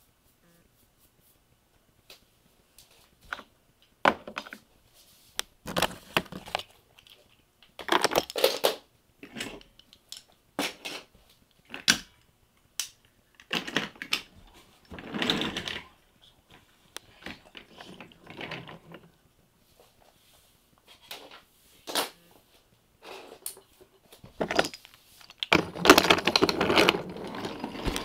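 Irregular clicks, knocks and short rattles of small hard objects, starting about two seconds in, with a denser, louder stretch of clattering near the end.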